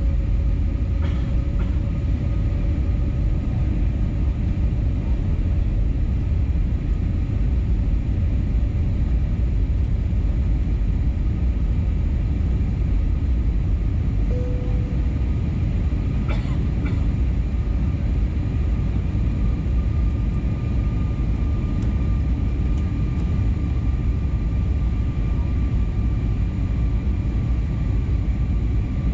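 Steady cabin noise inside an Airbus A320neo descending to land: a low rumble of airflow and engines with faint steady whining tones over it. A single sharp click sounds just past halfway.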